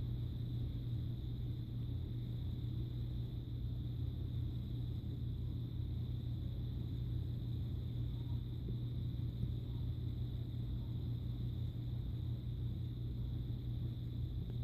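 Steady low room hum with a faint, steady high-pitched whine above it.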